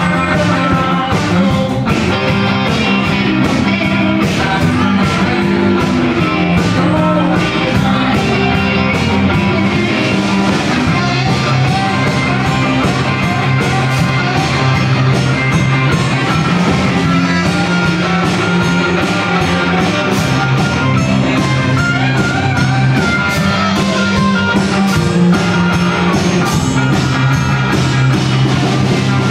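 Live rock band playing electric guitars over drums, with cymbals and drum strikes throughout and sustained low notes underneath.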